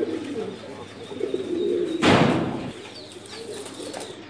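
English Trumpeter pigeons cooing with low, wavering calls, and a brief loud rustle about two seconds in.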